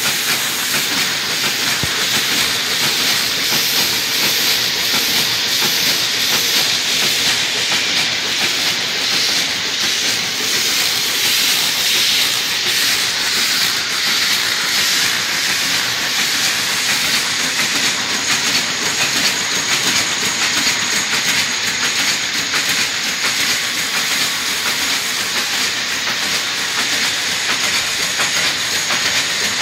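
Rollem TR 30 sheet-fed print-finishing machine running steadily, a continuous hissing mechanical noise. A faint thin high whine joins in a little past the halfway point.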